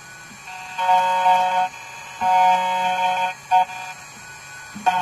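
Tank2 Pro CNC key cutting machine cutting a HYN22 key blank: a steady multi-tone mechanical whine that starts and stops several times, in stretches of about a second, as the machine moves between cuts.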